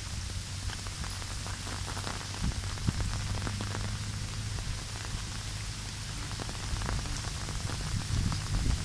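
Steady rain falling, with many scattered sharp taps of drops landing close by over a low rumble.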